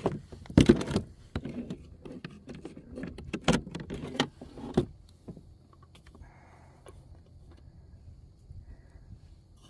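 Handling noise in a small boat: a run of knocks, clatters and rubbing sounds as a landed bass and gear are moved about, loudest about a second in and again midway, dying away after about five seconds.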